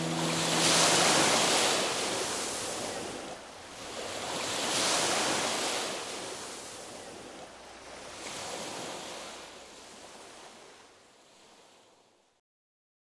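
Ocean surf washing in three slow swells, each fainter than the last, as the closing sound of an ambient music track; it fades and then cuts off near the end.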